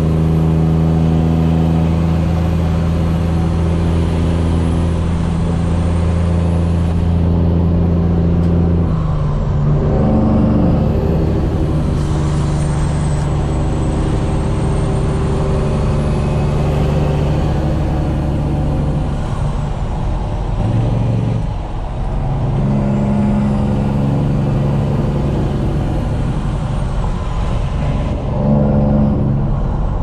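Semi truck's diesel engine running under way, heard from inside the cab. Its note changes about nine seconds in and again around twenty-one seconds, where the sound briefly dips. A faint high whistle rises and falls above it.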